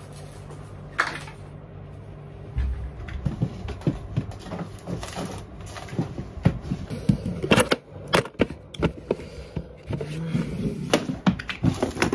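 Handling noise: a shoulder bag being packed, then a desk drawer pulled open and things shifted about inside it, giving an irregular run of knocks and clicks. A low steady hum sits under the first couple of seconds.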